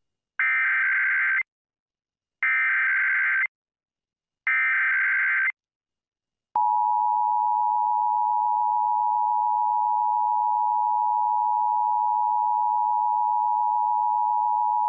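Emergency Alert System header: three one-second bursts of SAME data tones about a second apart, then the two-tone attention signal (853 and 960 Hz together) held steady for about eight seconds, opening a required monthly test.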